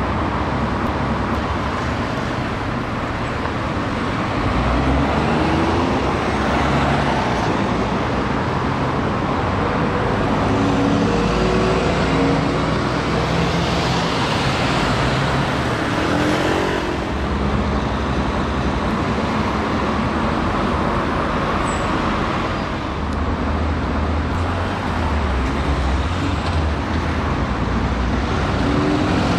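Street traffic with an Alexander Dennis Trident / Enviro 400 double-decker diesel bus moving off and driving away, among passing cars. A second bus of the same type draws up close near the end.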